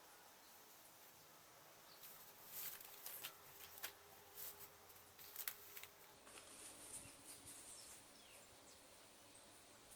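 Faint rustling and clicking of packaging and T-shirts being handled, clustered from about two seconds in to about six, over a quiet hiss.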